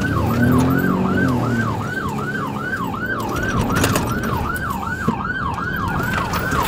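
Police siren on a fast yelp, about three to four rapid pitch sweeps a second, heard from inside a moving police cruiser over its engine and road noise.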